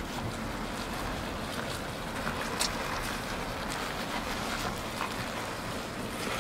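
Steady road and wind noise of a car driving slowly, heard from inside through the open side window, with scattered light clicks and ticks, the sharpest about two and a half seconds in.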